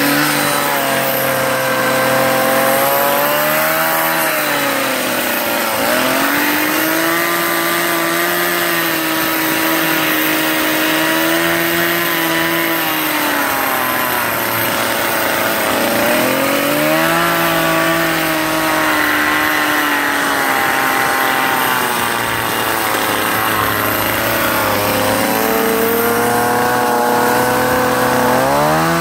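Stihl two-stroke chainsaw running while carving wood, its engine pitch dropping and climbing back several times as the revs rise and fall.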